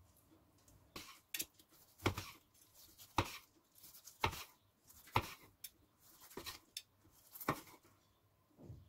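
Knife slicing cooked beef steak on a plastic cutting board, the blade knocking faintly on the board about once a second.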